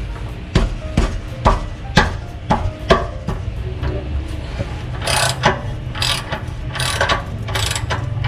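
Ratchet wrench clicking as it works a bolt on a car's exhaust mounting, loosening it to drop the exhaust. Sharp clicks come about two a second for the first few seconds, then a run of louder, rasping ratchet strokes near the end.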